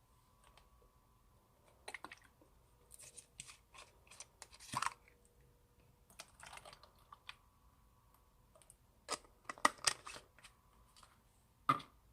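Old slime being squeezed and handled, giving off irregular sticky clicks and crackles, with a few louder bunches of pops.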